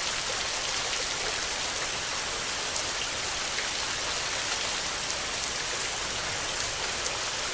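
Steady rain falling: a dense, even hiss with the small ticks of single drops through it.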